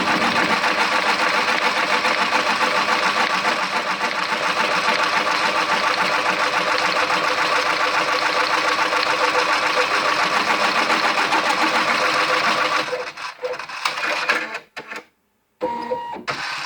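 A machine running with a fast, steady, rhythmic clatter that stops about 13 seconds in, followed by a few short sounds and brief tones.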